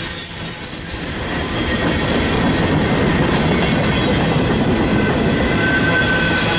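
Freight train of boxcars and autorack cars rolling past close by: a steady rumble and rattle of steel wheels on the rails, with thin wheel squeal that grows clearer near the end.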